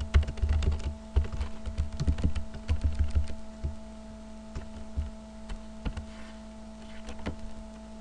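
Typing on a computer keyboard: quick runs of keystrokes for the first few seconds, then scattered single key presses, over a steady electrical hum.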